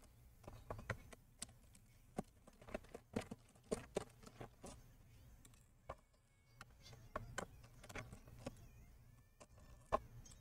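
Faint, irregular clicks and ticks of a small Phillips screwdriver turning screws out of a laptop's plastic bottom cover, with the screwdriver and fingers tapping against the case; the sharpest click comes near the end.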